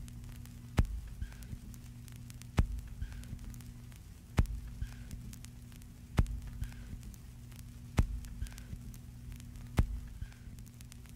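A steady low hum with a sharp click about every 1.8 seconds, six in all. Each click is followed by a few fainter ticks.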